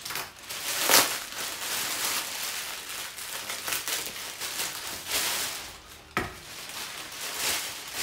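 Large plastic parcel bag rustling and crinkling as it is unwrapped, with a louder sharp crackle about a second in.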